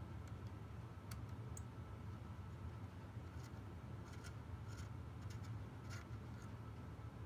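Faint, scattered light clicks of an Allen wrench and small screws being worked on scope rings fitted to a rifle's scope rail, over a steady low hum.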